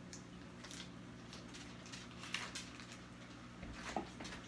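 Faint handling sounds of butter being worked onto a raw turkey by hand: scattered small soft noises, a little stronger about two and a half seconds in and again near the end, over a steady low hum.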